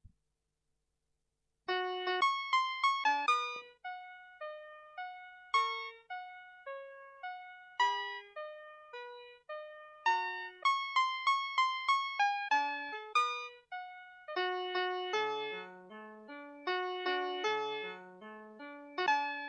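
VTech Schlummerschnuffi toy's sound chip playing a classical tune in thin, electronic piano-like tones, with quick runs of repeated notes. The tune starts about two seconds in, after a faint click and near silence.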